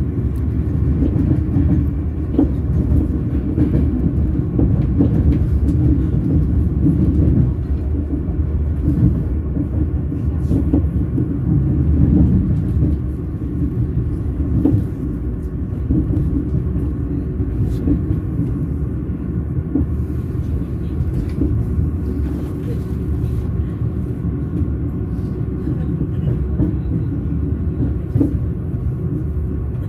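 Train wheels rolling on the rails: a steady low rumble with a few faint clicks.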